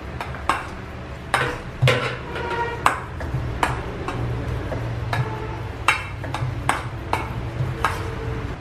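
Metal spoon clinking and scraping against a stainless steel mixing bowl as a thick paste is stirred, with sharp clinks every half second to a second, some ringing briefly. Soft knife strokes on a wooden cutting board mix in.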